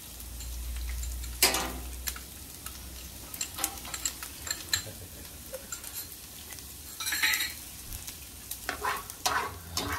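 Chopped onion and garlic frying in oil in a large steel paella pan over a wood fire, sizzling steadily, with a metal skimmer scraping and clicking against the pan as it is stirred. A sharp knock about a second and a half in is the loudest sound.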